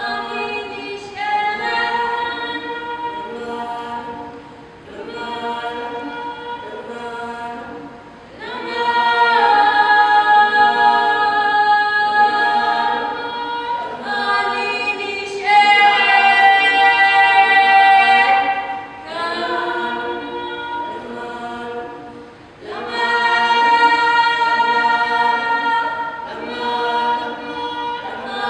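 A small group of women singing unaccompanied in harmony, in long held notes and phrases of a few seconds, swelling louder for a few seconds around a third of the way in and again just past halfway.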